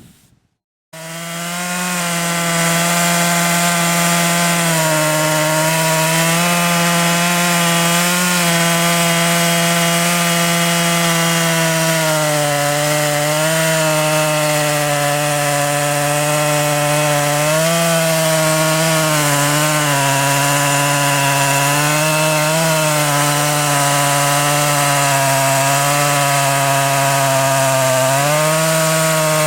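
Two-stroke chainsaw engine at full throttle, ripping lengthwise through a log in a Granberg small log mill. It starts abruptly about a second in, and its pitch dips and recovers now and then as the chain loads in the cut.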